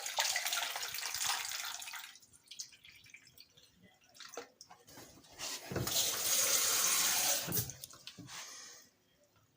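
Water running and pouring into a container in two spells of about two seconds each, the second fuller and deeper: filling with water to run a first cleaning cycle through a new drip coffee maker.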